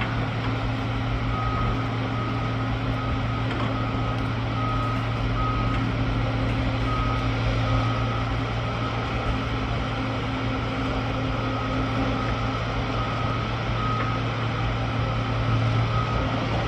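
Construction machine's back-up alarm beeping in evenly spaced runs that stop and start several times, over the steady hum of a diesel engine running.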